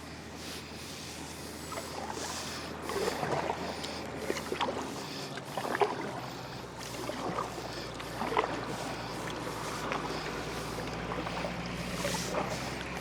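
Kayak paddle strokes dipping and splashing in calm river water, about one stroke every second or so, with a faint low steady engine hum underneath.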